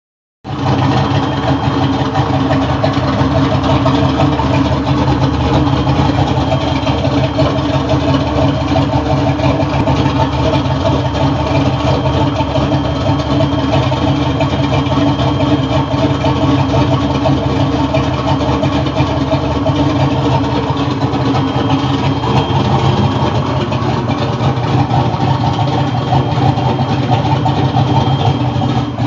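An engine running steadily at idle, loud and even throughout, with no revving.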